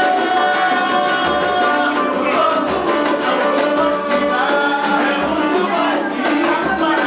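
Latin American song with plucked guitar and singing over a steady beat.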